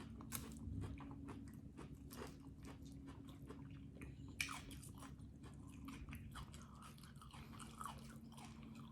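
A person chewing and biting food close to the microphone: faint, irregular crunches and wet mouth clicks, with a sharper click about 4½ seconds in, over a low steady hum.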